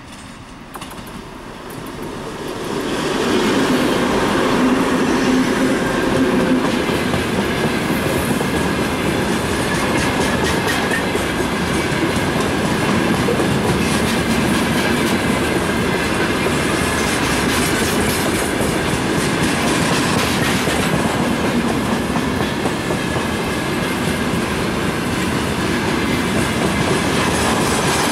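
2TE25KM twin-section diesel locomotive approaching and passing, its engines growing louder over the first few seconds, then a long freight train of tank wagons rolling past with a steady clickety-clack of wheels over the rail joints.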